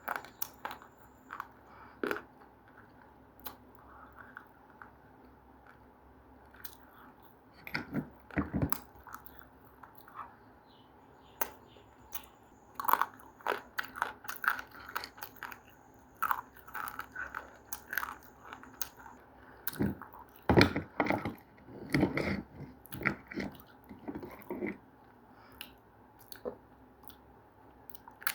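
Close-up crunching as something crisp is bitten and chewed, coming in irregular bursts with quiet gaps, the heaviest crunches clustered about a third of the way in and again past the two-thirds mark.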